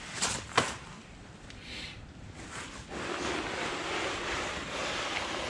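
A couple of sharp metal clinks as the just-loosened hydraulic filter and filter wrench are handled. From about three seconds in, a steady rushing noise follows.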